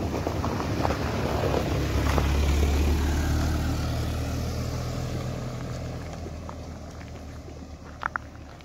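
Dacia Duster driving past at low speed on a rough gravel-and-concrete lane, loudest about two to three seconds in, then fading steadily as it pulls away.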